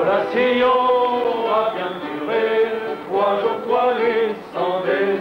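Male voices singing a chant-like song with long held notes.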